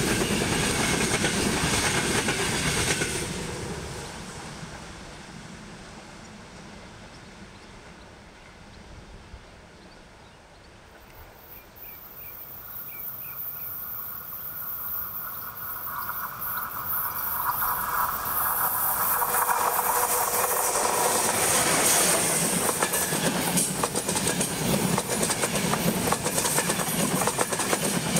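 Passenger train coaches rumbling and clattering past close by, fading away after about three seconds. Then a second electric-hauled passenger train approaches: a growing hum from the rails swells over about ten seconds until the coaches pass close, wheels clattering over the rail joints.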